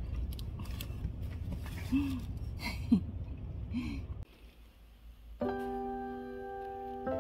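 A steady low outdoor rumble with three short voiced calls. The sound then drops away, and background piano music starts about five seconds in.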